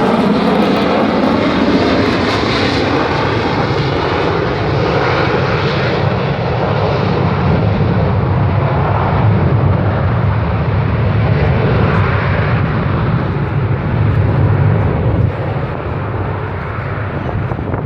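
F-35B Lightning II in a hover, its F135 jet engine and Rolls-Royce lift fan running at high thrust with a loud, steady jet noise. The sound eases slightly about 15 seconds in.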